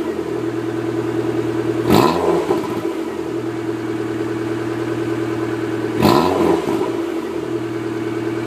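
Suzuki Jimny engine idling through a fitted Peugeot 306 exhaust, blipped twice about two and six seconds in, the revs rising and falling back to idle each time.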